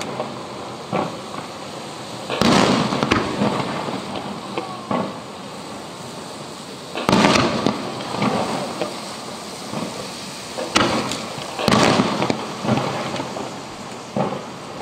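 Aerial firework shells bursting overhead: several loud booms a few seconds apart, the biggest about two and a half, seven and eleven seconds in, each trailing off in a long rolling echo, with smaller cracks between them.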